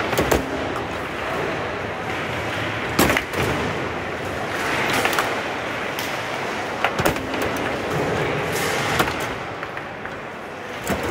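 Foosball being played on a competition table: sharp clacks at irregular intervals as the ball is struck by the plastic player figures and knocks against the table, with the rods shifting and banging, over steady background noise.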